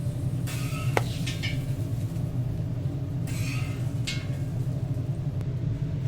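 Steady low rumbling hum, with a sharp click about a second in and two short scraping or rustling noises, one near the start and one about three seconds in.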